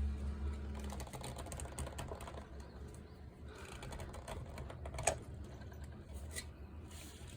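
Scattered light clicks and taps of small parts and tools being handled during disassembly of a reciprocating saw. A low steady hum cuts off about a second in.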